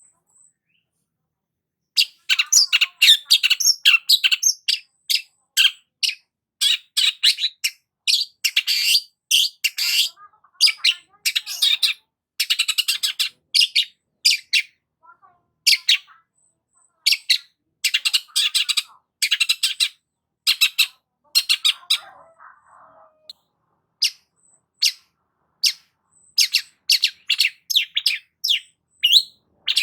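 Long-tailed shrike singing in full, lively song: rapid runs of short chattering and whistled notes in phrases with brief pauses, starting about two seconds in.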